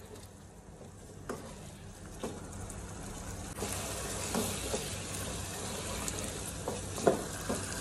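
Chicken curry being fried down (bhuna) in its masala in a nonstick pan: a steady sizzle while a wooden spoon stirs and scrapes, with occasional knocks of the spoon on the pan. The sizzle grows louder a little after halfway.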